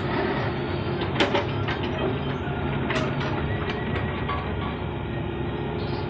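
Mini excavator's engine running steadily while it digs, with a few short metallic clanks from the machine about a second in and again near the middle.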